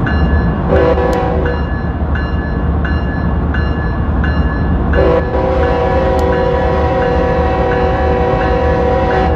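Diesel locomotive horn chord: a short blast about a second in, then a long steady blast from about five seconds in. Under it, a locomotive bell rings about twice a second over the low rumble of the diesel engine.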